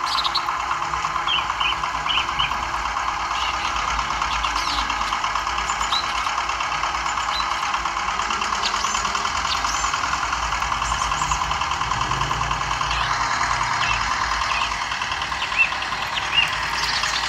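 Miniature model engine, built to look like a single-cylinder diesel, running steadily with a fast, even beat while it turns a small water pump by a rubber-band belt.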